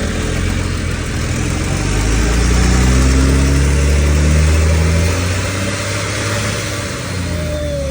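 Engine of an RATP Heuliez GX437 bus running with a tractor-like sound, unusual for this bus. It builds up and rises slightly in pitch from about two seconds in, then eases off after about five seconds.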